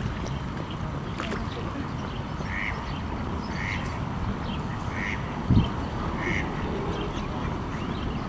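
A duck quacking four times, about a second apart, over a steady low rumble, with a single low thump about five and a half seconds in.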